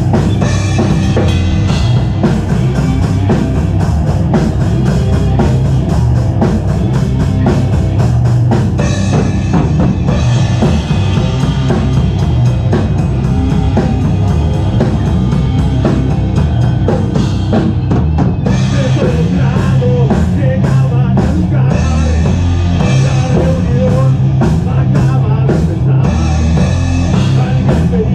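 A doom/stoner rock band playing live, instrumental: heavy guitar and bass over a full drum kit with bass drum and snare. It is loud and steady, picked up by a single camera microphone in the rehearsal room.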